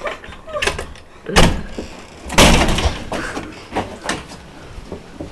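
A door being pushed open and knocked, with two loud bangs about a second apart, the second the loudest, then a few lighter knocks.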